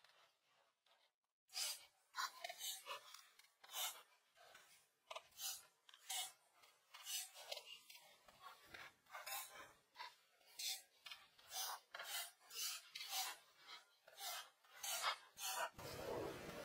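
Graphite pencil scratching on drawing paper in short sketching strokes, about two a second. Near the end the strokes give way to a steadier hiss.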